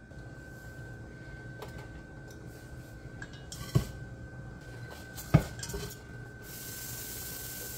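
Pots and utensils clattering as cooking starts, with two sharp knocks of cookware a second and a half apart near the middle. A steady hiss begins near the end.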